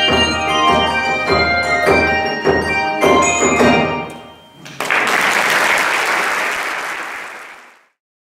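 Handbell choir ringing a run of loud struck chords, about one every 0.6 seconds, that ring on and die away. Audience applause breaks out about five seconds in and fades out near the end.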